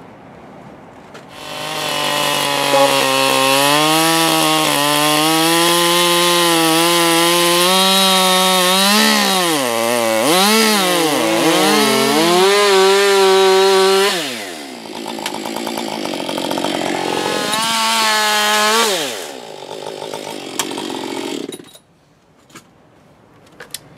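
Two-stroke chainsaw ripping a plank lengthwise from a log. It starts about a second in and runs at full throttle, its revs dipping and recovering several times as the chain bites. About 14 seconds in it drops back to part throttle, then idles down and stops a couple of seconds before the end.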